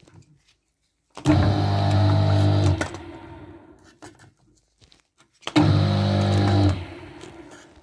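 Electric motor of an opened lift pump, its impeller removed, switched on twice for about a second and a half each time: a steady low hum as the bare shaft spins, fading away after each switch-off as the motor coasts down.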